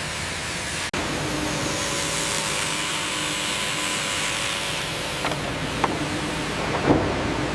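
Sawmill machinery running with a steady hiss and faint hum, with two short knocks near the end.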